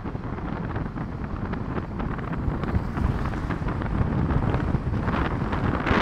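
Wind buffeting the microphone of a camera moving along a road: a steady low rumble that grows louder and more hissy near the end.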